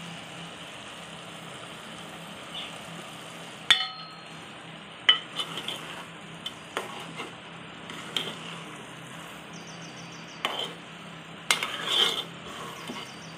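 A spoon stirring sweet saffron rice (zarda) in an aluminium pot on the stove over a steady low sizzle, with several sharp knocks of the spoon against the pot.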